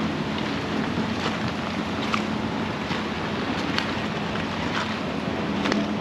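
Steady rushing of a flowing river, with a few faint light ticks over it.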